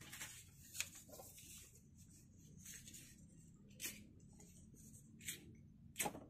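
Faint rustling of paper strips being handled, with a few sharp clicks; the loudest click, just after six seconds, comes as a lighter is struck and lit.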